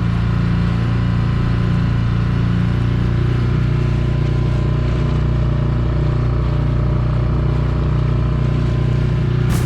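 An engine running at a steady speed, a constant low hum with an even drone of overtones and a noisy rush over it.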